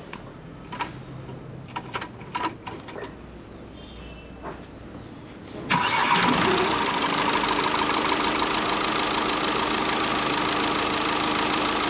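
Volkswagen Polo 1.5 TDI diesel engine catching about six seconds in on its first start after sitting for about two years, then settling into a steady idle. Before it, a few scattered clicks and knocks.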